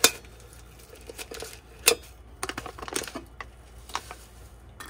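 Paper coffee filter rustling as it is stretched over a cup and held on with a scrunchie, with two sharp clicks nearly two seconds apart. Then a run of lighter crinkles and taps as a coffee bag is handled.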